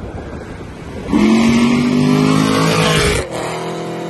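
Car engine pulling hard under throttle for about two seconds, its pitch climbing slowly, then dropping off abruptly to a lower, steady running note.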